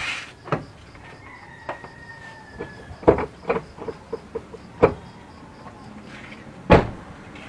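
Car brake pedal being pumped: irregular sharp clunks a second or more apart, as the caliper pistons are pushed back out against the freshly fitted front pads so the pedal will be firm before the car is driven. A rooster crows faintly about a second in.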